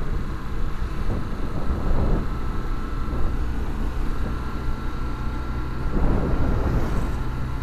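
Honda CB Twister 250's single-cylinder four-stroke engine running steadily as the motorcycle cruises at about 40 km/h, with wind buffeting the unshielded camera microphone in surges about two seconds and six seconds in.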